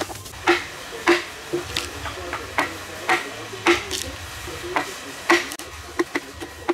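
Repeated blows of a hand carving tool chopping into a large wooden log, about two a second, each a sharp knock with a short ring. Near the end the blows come quicker and lighter.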